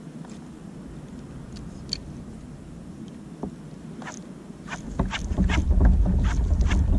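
Quiet lapping of water and hull noise from a fishing kayak. From about four seconds in, a quick series of sharp ticks comes as the egging rod is jerked and the spinning reel is cranked. A low rumble builds up over the last two seconds.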